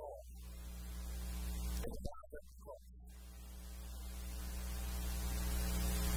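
Steady electrical mains hum with a hiss that slowly grows louder. A short vocal sound comes about two seconds in, and the hum dips briefly after it.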